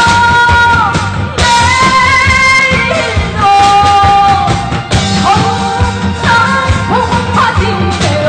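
Korean trot song: a lead melody of long held notes with slides between them, over a steady bass-and-drum beat.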